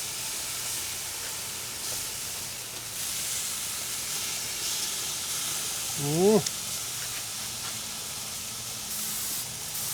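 Pork chops sizzling on a grill, a steady hiss. About six seconds in there is one short rising voiced sound.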